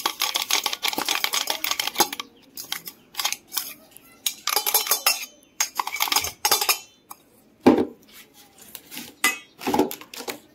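Stainless steel jar and spoon clattering against a steel bowl while ground biscuit powder is emptied out. A quick run of scraping clicks in the first two seconds, then scattered clinks, with two heavier knocks in the last few seconds.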